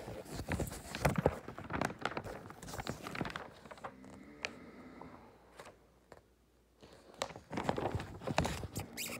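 Handling noise close to the microphone: rustling and many small sharp clicks, busy at first, quieter in the middle, then busy again near the end.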